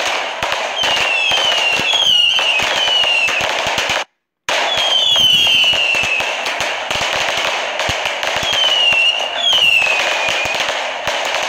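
Many firework cakes going off at once: a dense, continuous crackle of shots and bursts, with repeated falling whistles over it. The sound drops out completely for about half a second around four seconds in.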